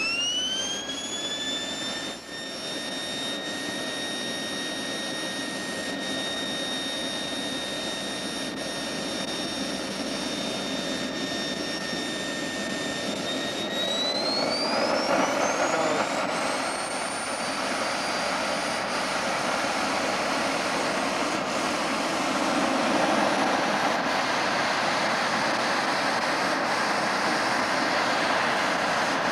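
Simjet 1200 model jet turbine on a propane air start. A high whine rises quickly as the rotor is spun up and then holds steady. About fourteen seconds in, the whine climbs sharply and a rushing roar builds as the engine lights and accelerates.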